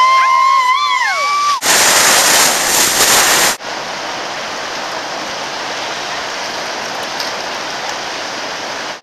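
Whitewater rapids rushing loudly, with a high-pitched whoop held for about a second and a half at the start. About three and a half seconds in, it cuts to a steadier, quieter rush of river rapids.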